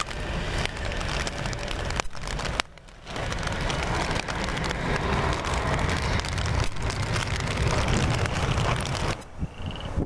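Twin-engine jet airliner climbing out after takeoff at full thrust, a heavy low rumble, under heavy rain crackling close to the microphone. The sound drops away briefly about a quarter of the way in and turns quieter near the end.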